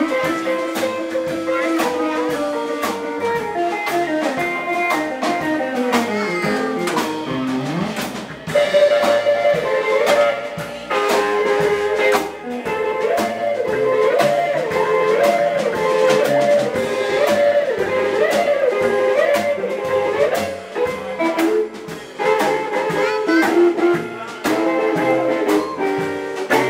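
Live band playing blues-style dance music: a drum kit keeps a steady beat under a guitar and melody line.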